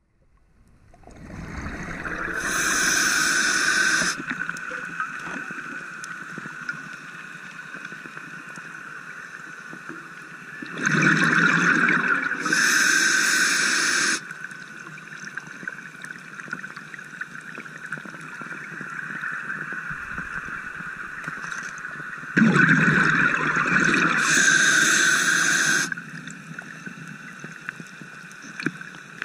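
A scuba diver breathing through a regulator underwater: three breaths about ten seconds apart, each a loud rush of air and bubbles lasting two to three seconds. Between the breaths there is a steady underwater hiss with a faint hum.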